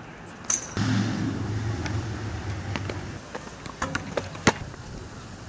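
A motor vehicle's engine hum comes in suddenly about a second in and fades away over the next few seconds. Scattered sharp knocks sit over it, the loudest about four and a half seconds in as the basketball strikes the hoop.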